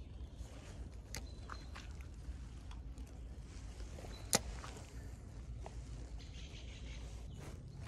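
Quiet riverbank ambience while fishing: a low steady rumble with scattered small clicks and rustles from handling the rod and reel. One sharp click a little over four seconds in is the loudest sound.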